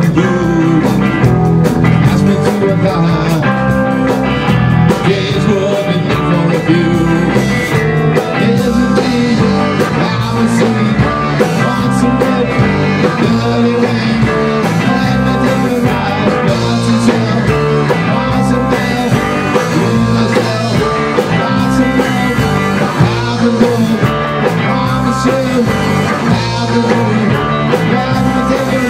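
Rock band playing live: distorted electric guitars, bass and a drum kit, with a man singing into a microphone.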